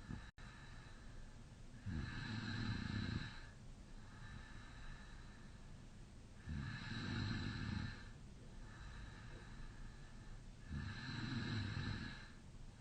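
A man snoring in deep sleep with his mouth slightly open: three snores about four seconds apart, with quieter breathing between them.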